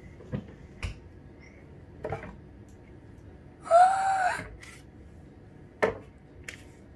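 Sharp knocks and clicks of a wooden box being handled on a wooden cabinet, with a child's short excited squeal about four seconds in that rises and falls in pitch, the loudest sound.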